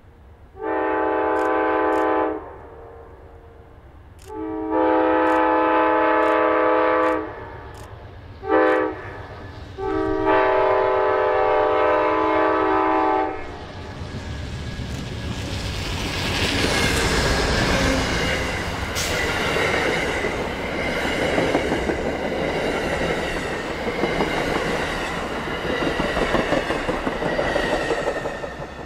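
Amtrak GE Genesis diesel locomotive sounding its air horn in four chord blasts, long, long, short, long: the grade-crossing signal. Then the passenger train passes with a loud, steady rumble of engine and wheels on rails for about fourteen seconds, fading near the end.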